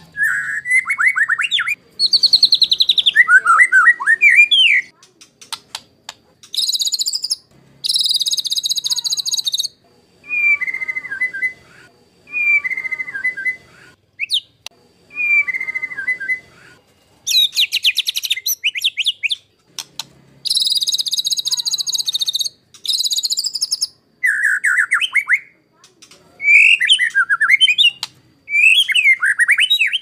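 White-rumped shama (murai batu) singing in loud phrases of a second or so with short pauses between them. Clear, falling whistled phrases alternate with harsh, rapid rasping bursts, the 'tembakan kasar' (rough shots) style of shama song.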